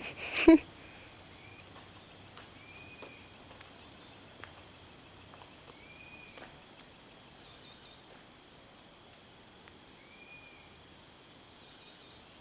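Chorus of crickets and other insects: a steady high buzzing, with one insect trilling in rapid pulses, about seven a second, from about a second and a half in until about seven seconds in. A short rising-then-falling chirp sounds three times a few seconds apart, and a single sharp knock about half a second in is the loudest sound.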